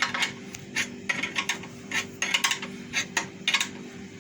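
Irregular metallic clinks and taps, several a second, from tools and metal parts being handled while a meat slicer is taken apart, over a steady low hum.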